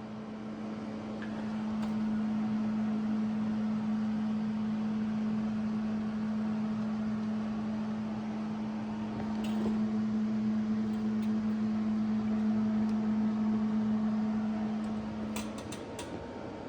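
Electric welder laying a bead on steel: a steady hum over a crackling hiss, which stops about fifteen seconds in, followed by a few sharp clicks.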